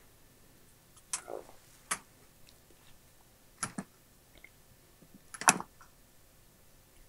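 Sharp little clicks and taps as a head setup gauge is handled and fitted against the heads of a cassette deck transport. There are single clicks and pairs a second or two apart, and the loudest cluster comes about five and a half seconds in.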